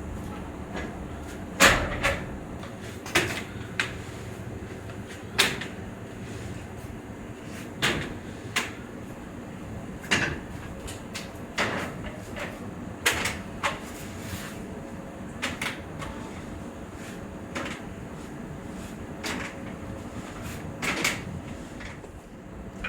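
Sharp knocks and clacks at irregular intervals, about one every one to two seconds and loudest about one and a half seconds in, over a steady machine hum in a woodworking shop.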